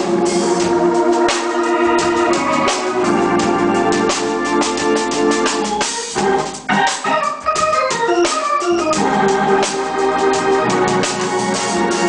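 Hammond console organ playing gospel chords and runs, briefly thinning out about halfway through.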